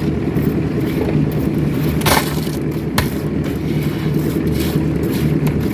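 Diesel-engined concrete mixer running steadily, its drum churning a rattling load of concrete, with sharp knocks about two and three seconds in.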